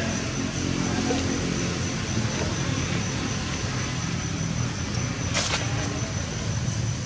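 Steady low hum of a running motor vehicle engine, with a thin steady high whine over it and one short sharp noise about five and a half seconds in.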